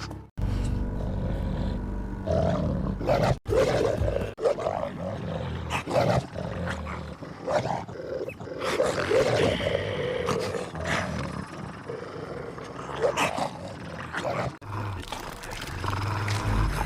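A run of film sound-effect wolf growls, several separate clips joined back to back, with short abrupt breaks between them.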